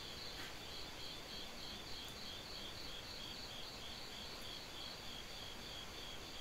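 Chorus of night-calling insects: a steady high trill, with a second insect calling in even pulses about twice a second.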